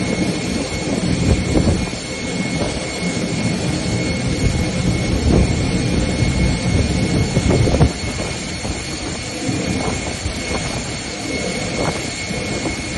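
Airliner jet engines running as a flydubai Boeing 737 taxis through floodwater: a steady high whine over a loud, uneven rumble that eases slightly about eight seconds in.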